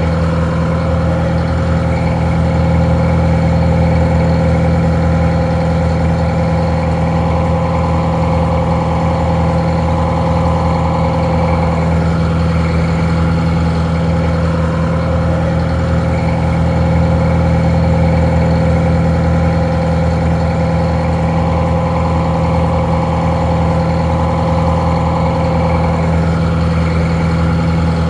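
Detroit Diesel 4-71 two-stroke diesel engine idling steadily, a little muffled.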